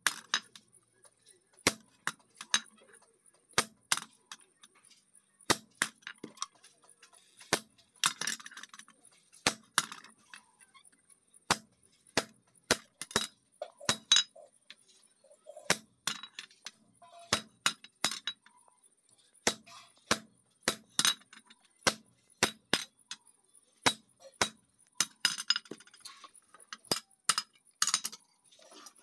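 Hammer striking a chisel held on a steel motorcycle sprocket laid across an anvil, cutting through the sprocket: sharp, ringing metallic clanks at an uneven pace, about one to two a second.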